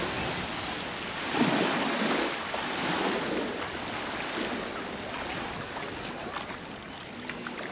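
Baltic Sea surf washing onto the beach, a steady rush that swells and eases, with wind on the microphone.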